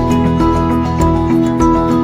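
Background music: calm new-age style with sustained notes changing every half second or so.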